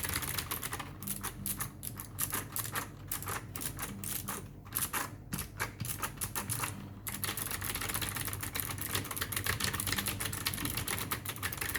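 Fast typing on a Dareu EK520 mechanical keyboard with blue (clicky) switches: a dense run of key clicks that thins to separate strokes about four seconds in, then speeds up again about seven seconds in.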